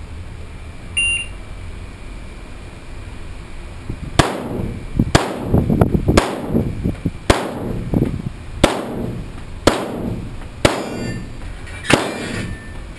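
Shotgun fired about nine times in quick succession, roughly once a second, each shot sharp with a ringing tail. A short electronic beep comes about a second in, a few seconds before the first shot.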